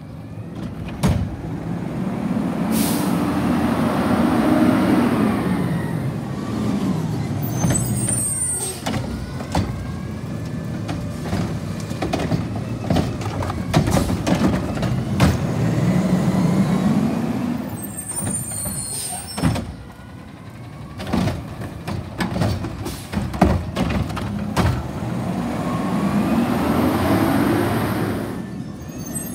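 Garbage truck with a Curotto-Can working carts: the engine revs up and falls back three times as the hydraulic arm lifts and dumps trash carts, with clunks and rattles of the carts and arm, and short sharp hisses of air.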